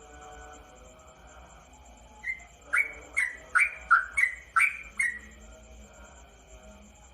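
Sooty-headed bulbul (trucukan) calling. About two seconds in it gives a quick run of roughly seven short, loud, bubbly notes lasting about three seconds.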